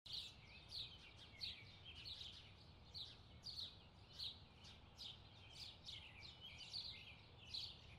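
Faint birdsong: short high chirps repeating about once or twice a second, over a faint low rumble.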